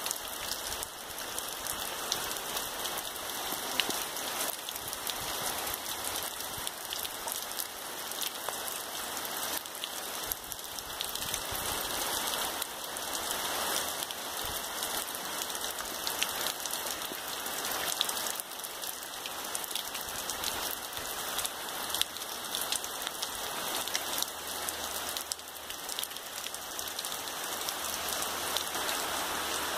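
Rain falling steadily on trees, grass and bare dirt: an even hiss dotted with many sharp drop ticks.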